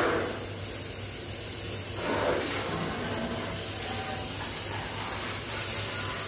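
Water spraying from a hose's pistol-grip nozzle onto a stainless-steel meat band saw: a steady hiss, briefly louder at the start and again about two seconds in, over a low steady hum.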